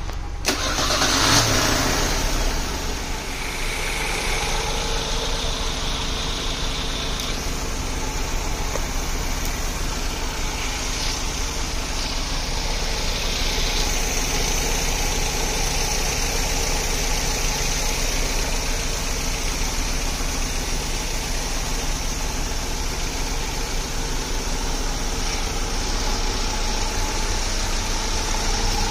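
Mercedes-Benz M102 8-valve 2-litre four-cylinder engine, converted to fuel injection under a home-built ECU, running at a steady idle after a brief louder surge about a second in.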